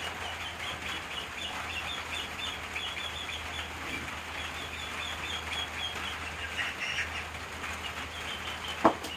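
A steady chorus of rapid, high-pitched animal chirping over a low hum, with a single sharp knock near the end.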